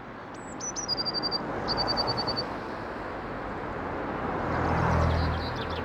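Steady road traffic with a vehicle passing, its engine hum swelling about four to five seconds in. Over it a songbird sings near the start: a high falling note, then two quick runs of short repeated notes.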